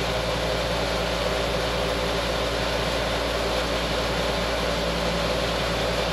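Electric vibrating motor running steadily, shaking a steel washplant feeder table loaded with dirt: a constant hum with a noisy hiss over it. Its counterweights are set back to reduce the vibration and the feed speed, which now feeds the dirt at a rate judged pretty good.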